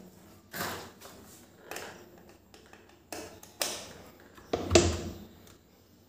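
A mixer grinder's power cord being handled and its plug pushed into a wall socket: a few light taps and rustles, the loudest, with a dull knock, about three-quarters of the way through. The motor is not yet running.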